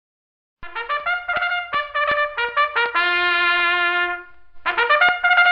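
Trumpet music starting about half a second in: a run of quick short notes, one long held note, then another quick run.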